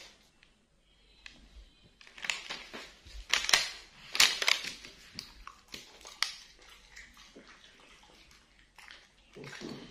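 A dog chewing crispy fried tofu-skin spring rolls: a run of crackly crunches starting about two seconds in and loudest around the middle, then quieter, scattered crunching.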